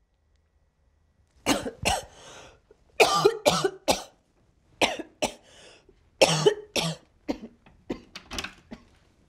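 A person coughing in several fits of two to four coughs, tapering into smaller, weaker coughs near the end.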